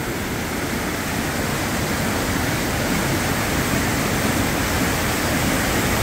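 Water rushing steadily through the wooden spillway chutes of an old mill dam, the chutes overflowing with high, turbulent water.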